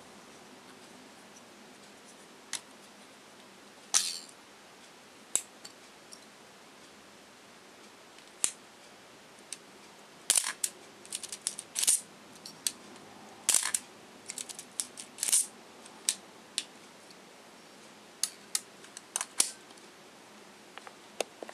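Olympus OM20 35mm film SLR being handled as its hinged back door is unlatched, swung open and shut again: a scattered series of sharp clicks and snaps, bunched most thickly in the middle.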